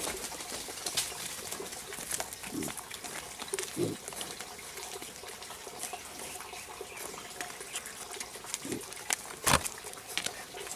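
Wild boar grunting briefly about three times while foraging, over a run of small clicks and rustles from snouts and hooves on the dirt. A sharp knock about nine and a half seconds in is the loudest sound.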